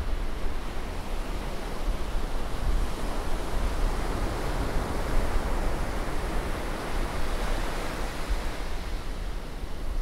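Gentle Caribbean surf washing onto a sandy beach: a steady rushing that swells to a peak about four to five seconds in, over a low rumble.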